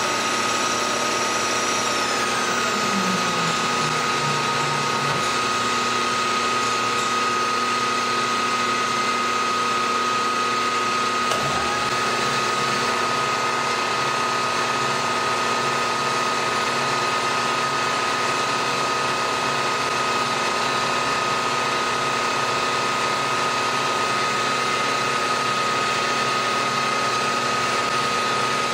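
Milling machine running a 1.5-inch face mill with aluminum inserts across an aluminum block, a steady machine whine with a strong high tone throughout as the table feeds the work past the cutter.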